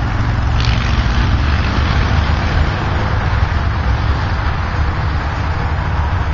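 52-inch Craftmade patio ceiling fan running, a loud, steady rushing noise, heaviest in the low end.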